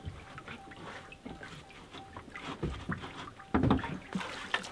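Clicks and clunks of a hand working the hood safety latch behind the grille of a Ram pickup, with one louder dull knock a little past halfway.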